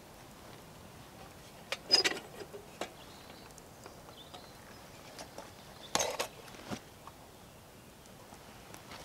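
Metal clinks and rattles of hurricane lanterns being handled: a sharp clink with a short ring about two seconds in, and another about six seconds in, with faint rustling between.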